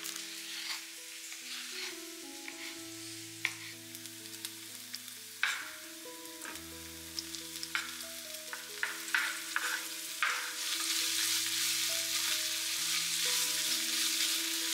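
Background music of soft held notes over scattered knife clicks on a wooden cutting board; from about ten seconds in, diced ham added to a hot frying pan sizzles loudly as it is stirred with a wooden spoon.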